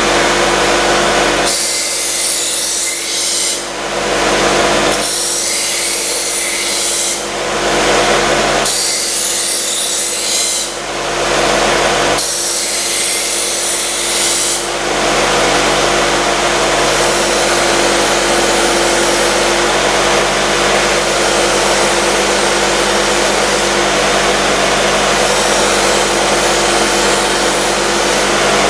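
F. Dick SM-100 knife sharpening machine running with a steady motor hum while a knife blade is ground against it. There are about four separate two-second grinding passes, then continuous grinding from about halfway on.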